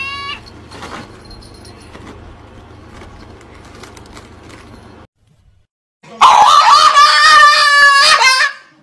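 A dog yowling loudly in a long, wavering, high-pitched "talking" whine-howl, starting about six seconds in. Before it, the tail of a cat's meow is heard at the very start, then faint room noise and a few light knocks.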